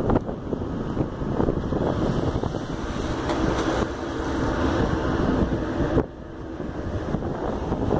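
Wind buffeting a phone's microphone on the deck of a ship under way, over the rush of water along the hull. The wind noise drops off suddenly about six seconds in, then builds again.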